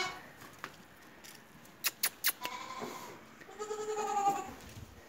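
Small livestock bleating: a faint call about two and a half seconds in, then a clearer, longer bleat about a second later. A few sharp clicks come before the calls.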